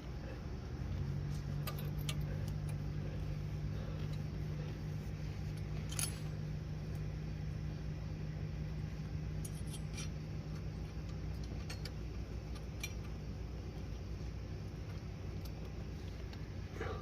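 Scattered light metallic clicks and clinks of tools and small brake-job parts being handled, over a steady low hum that fades out about twelve seconds in.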